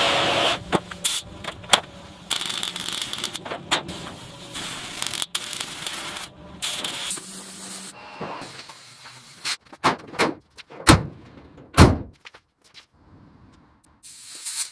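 Car-restoration workshop noises cut together: stretches of hissing broken by abrupt cuts, and a string of sharp knocks and clicks, the two loudest knocks near the end.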